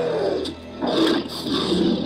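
Dinosaur roars for an Indominus Rex attacking, several in quick succession with a short break about half a second in.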